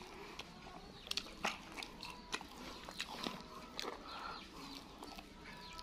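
Close-miked mouth sounds of a person eating rice and sauced chicken: chewing with irregular wet lip smacks and clicks.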